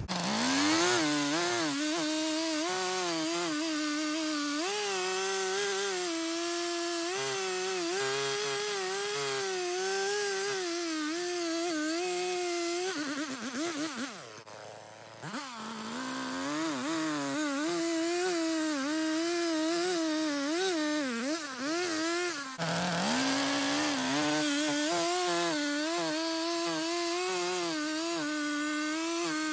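Stihl chainsaw revving up and running at full throttle while noodling a log, its full-chisel chain cutting along the grain and pulling out long strands. The engine note wavers under load, drops away about 13 seconds in and again around 22 seconds, and climbs back to full revs each time.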